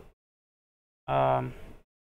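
Speech only: one short spoken sound from a man's voice about halfway through, with dead silence either side.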